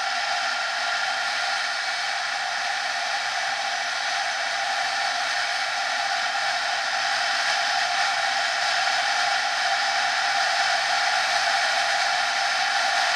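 Honda NSR 50's single-cylinder two-stroke engine running steadily at cruising speed, growing slightly louder in the second half.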